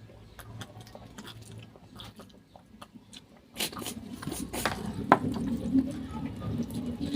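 Close-up eating: seafood in garlic butter sauce being bitten and chewed, wet squishing and small clicking sounds that grow louder and busier about three and a half seconds in.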